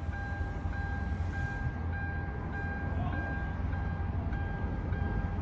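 An electronic warning tone sounding in a steady pulse, about one and a half to two beats a second, over a continuous low rumble.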